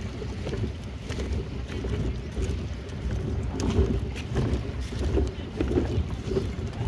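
Wind buffeting the microphone over water lapping and sloshing against a floating plastic pontoon dock, with scattered small knocks.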